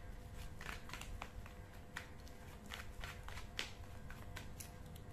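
A deck of tarot cards being shuffled by hand: a quick, irregular run of light clicks and slaps as the cards slide against each other.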